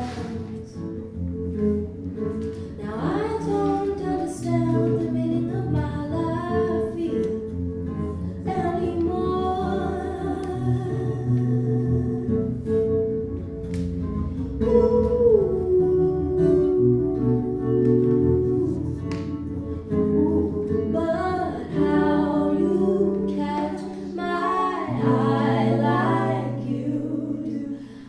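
A woman singing a soul song to her own accompaniment on a Stratocaster-style electric guitar.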